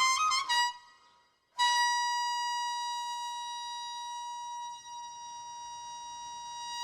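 Solo melodic instrument playing Korean traditional music. A short wavering phrase ends, there is a brief pause, and then one long steady note is held for about five seconds, slowly softening.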